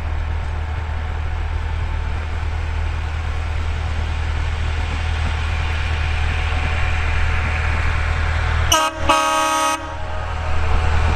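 Narrow-gauge diesel locomotive running steadily as it approaches, its running noise growing louder, then sounding its horn near the end: a very short toot followed by a blast of about a second.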